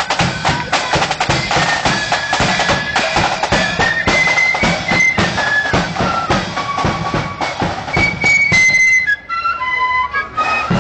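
Marching flute band playing a tune in unison over snare and bass drums. About nine seconds in the drums stop for a moment while the flutes play on, then the drums come back in.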